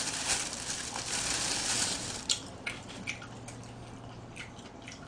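Thin plastic bag rustling and crinkling as lettuce leaves are pulled out of it, followed by a few light clicks.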